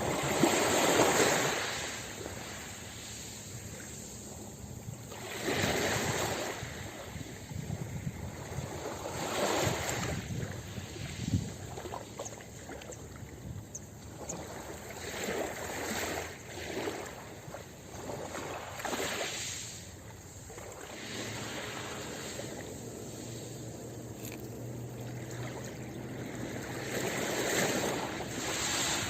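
Ocean waves breaking on a beach: a steady wash of surf that swells with each breaking wave every few seconds, loudest just after the start.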